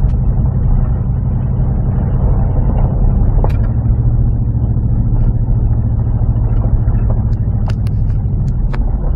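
Dodge Dakota pickup rolling slowly along a dirt track, heard from inside the cab: a steady low drone of engine and tyres. A few sharp clicks and ticks come about three and a half seconds in and again as a cluster near the end.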